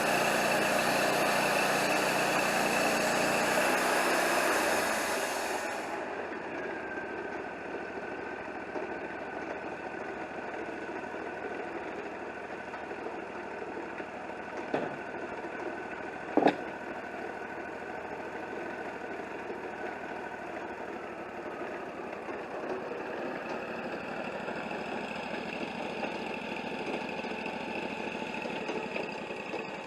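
Wood-Mizer LT40 band sawmill running, loud for the first five seconds or so, then dropping to a quieter steady idle. Two sharp knocks come about a second and a half apart midway.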